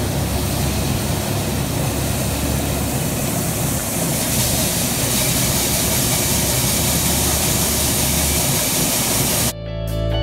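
Commercial coffee roaster running: a steady rushing noise with a low hum underneath. It cuts off abruptly about nine and a half seconds in, and rock guitar music starts.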